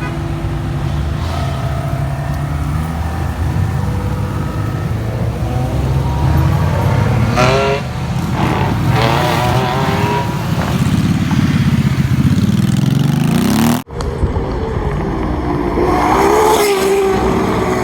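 Supercar engines revving and accelerating. The engine note rises and wavers through the first clip, breaks off suddenly about fourteen seconds in, and a second car's engine takes over.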